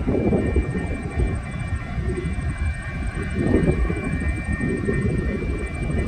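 Low rumble of TasRail TR-class diesel locomotives approaching slowly, under a 30 km/h heat restriction, with a few steady high tones over it.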